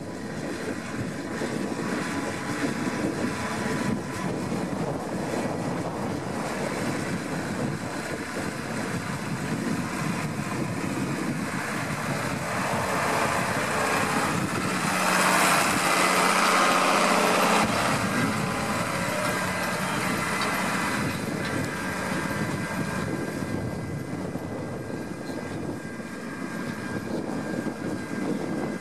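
New Holland TS115 tractor's diesel engine running steadily under load while pulling a plough through the soil. It grows louder for a few seconds around the middle as the tractor passes close.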